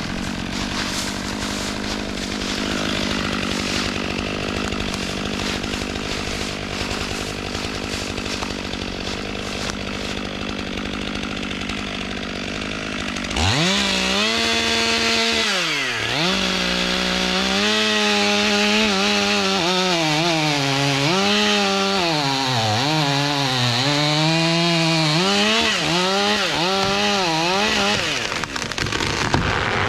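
Stihl MS 500i fuel-injected two-stroke chainsaw with a 32-inch bar, running steadily. About thirteen seconds in it revs up loudly and cuts into a dead oak, its engine pitch dipping and climbing again and again under load until near the end.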